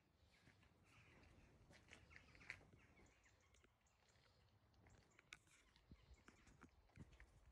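Near silence: faint outdoor ambience with a few soft scattered clicks and faint chirps.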